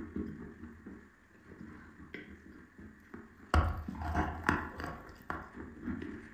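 A person bites into a dry block of white chalk with a loud, sharp crunch about three and a half seconds in, then chews it with irregular crackling crunches. Before the bite there is quieter chewing with sparse small clicks.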